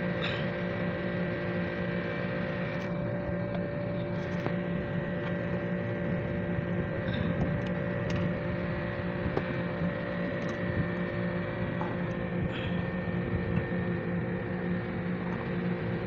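Steady machine hum with several fixed pitches, joined by a few faint clicks as hands handle wiring and plastic parts inside a washing machine.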